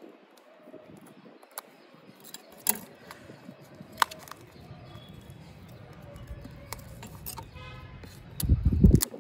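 Hands opening a cardboard smartphone box: scattered light clicks and taps, then a louder low rumble of handling noise near the end.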